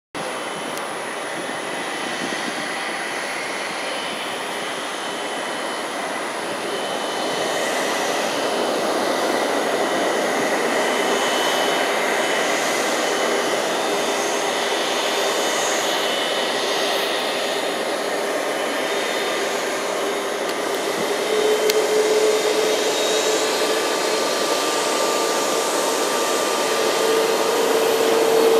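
An Airbus A330-200's Rolls-Royce Trent 700 turbofans at taxi power as the airliner rolls past: a steady rushing hiss with thin whining tones. It grows gradually louder as the jet draws nearer, and a stronger whine comes in near the end.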